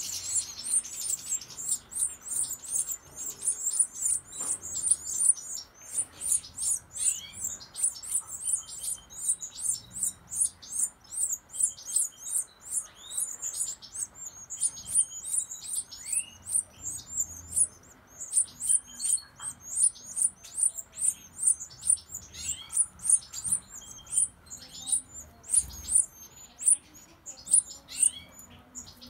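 European goldfinch nestlings begging at the nest as a parent feeds them: a rapid, steady stream of high-pitched cheeps, several a second, with occasional lower sliding chirps.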